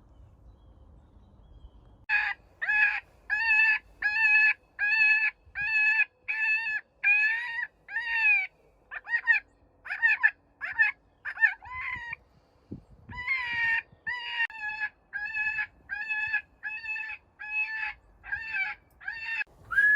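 FoxPro Jackhammer electronic predator call playing a cottontail rabbit distress call through its speaker: a string of loud, wailing cries, about one and a half a second, broken by short pauses.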